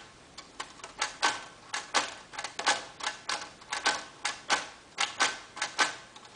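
Typing on a 1928 Royal Model P portable typewriter: its typebars strike the platen in an uneven run of sharp clacks, about three a second, while it is tried out to see whether it still works.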